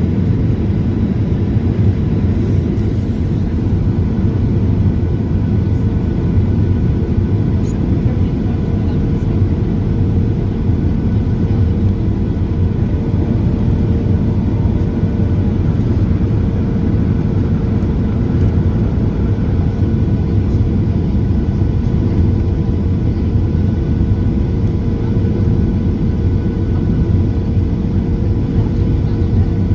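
Boeing 737-900 cabin noise in flight: a steady low rumble of CFM56 jet engines and airflow, with faint steady whining tones above it.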